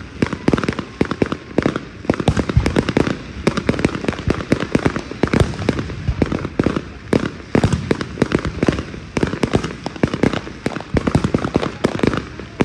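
Aerial firework shells bursting in a dense barrage, several sharp bangs a second overlapping without a break.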